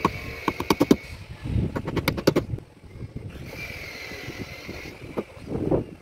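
Two quick runs of sharp metallic clicks from a hand tool working the steel reinforcement bars of lintel formwork. A vehicle engine hums in the background.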